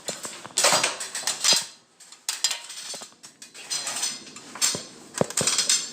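Ladder clattering and rattling in short bursts, with sharp metallic clicks and knocks, as it is set up and climbed to reach an attic access.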